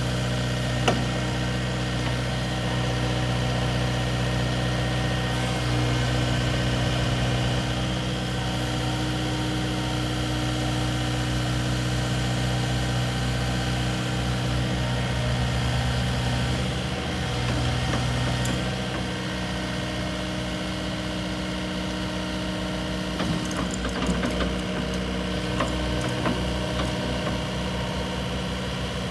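Diesel engine of a Kubota KX080-4a 8-tonne excavator running steadily at idle, with a few light clicks near the end.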